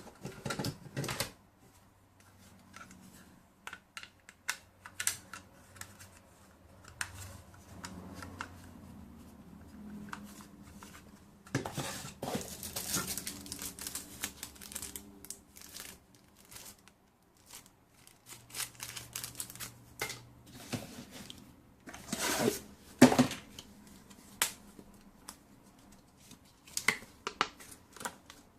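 Objects and packaging being handled at close range: irregular clicks, taps and rustling, with louder stretches of rustling a little under halfway through and again about three quarters of the way through.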